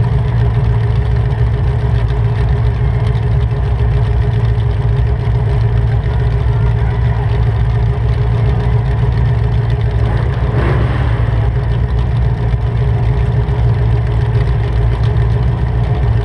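Demolition derby car's engine idling steadily and loudly through open upright header pipes, with no mufflers.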